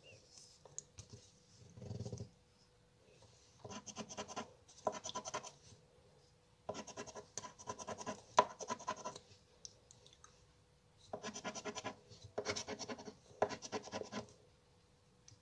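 Scratch-card coating being rubbed off a paper lottery crossword card with a round scraper, in about seven short bouts of a second or so each, with pauses between them.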